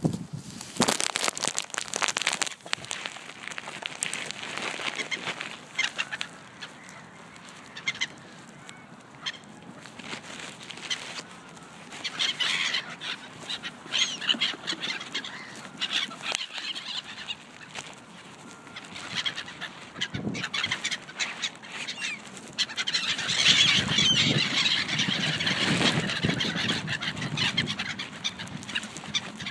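Canada geese honking among a mixed flock of waterbirds calling, in several bursts, the loudest about three quarters of the way through.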